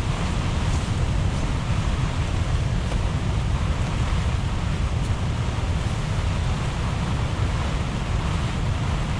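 Strong tropical-storm wind gusting and buffeting the microphone as a steady low rumble, with the surf of the nearby sea behind it.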